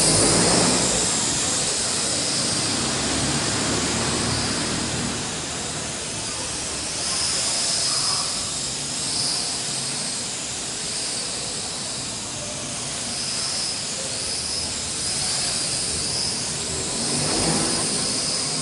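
L6036 toy quadcopter in flight: its four small motors and propellers give a steady high whine over a rushing hiss, the pitch wavering up and down as the throttle changes. It is loudest in the first second or so.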